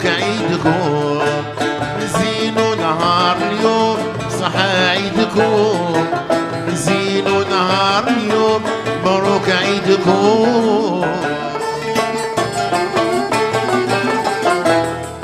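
Algerian chaabi music played live: a man singing over plucked mandole and banjos, violin, keyboard and hand percussion from a jingled frame drum and a goblet drum.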